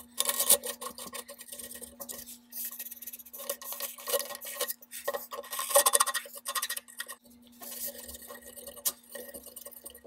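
Hands rubbing and scraping over a 3D printer's bed and its textured build sheet, in several short scratchy bursts with small clicks, over a faint steady hum.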